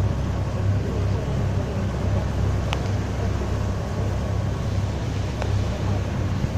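Passenger ferry's engine running steadily with a low, throbbing drone, over the rush of the wake water and wind.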